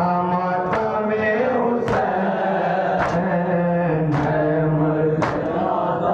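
A mourning lament (noha) chanted in long, held notes, kept in time by loud, even slaps of chest-beating (matam), about one slap a second.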